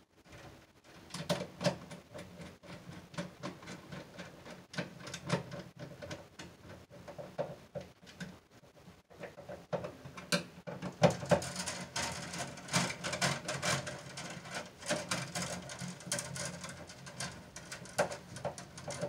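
Romex cable being worked through a cable connector into a metal sub-panel: irregular small clicks, scrapes and rustles of the cable sheath against the connector and panel, busier in the second half.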